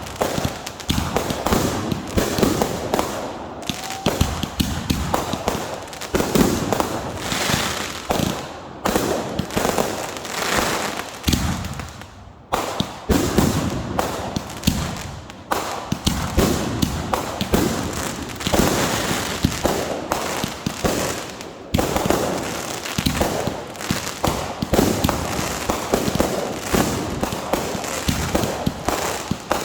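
Fireworks going off in a dense, continuous barrage of sharp bangs and crackling pops, with a brief lull about 12 seconds in.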